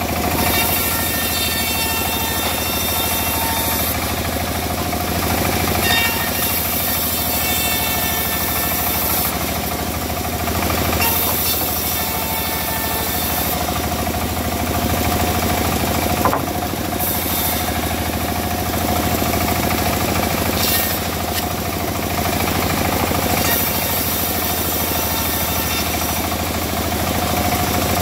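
Engine-driven saw running steadily while cutting teak wood, with a sharp click about 16 seconds in.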